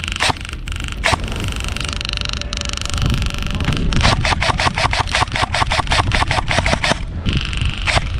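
Airsoft guns firing: a couple of single shots, then a rapid full-auto burst of about eight shots a second lasting around three seconds, and another single shot near the end.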